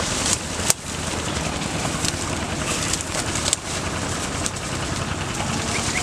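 Footsteps pushing through tall grass and dry reeds, with sharp crackles of stems and brush every second or so, over a steady rumbling background noise. A few quick bird chirps come in near the end.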